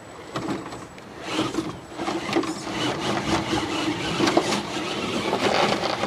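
Electric drive and gears of a LAEGENDARY Rango RC rock crawler pulling it up a plastic toy slide, a steady hum that starts about a second in. Knocks and scraping come from the truck against the plastic as it climbs.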